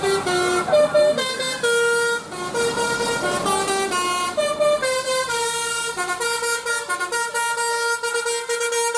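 Bus telolet horn of the Basuri multi-trumpet type playing a melody of stepped musical notes, with a longer held note in the second half.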